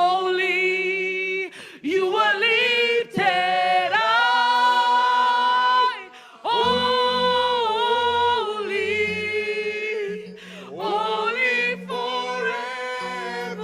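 Worship singers holding long, sliding notes in harmony, drawn-out vowels with short breaks between phrases. Low steady tones come in underneath about halfway through.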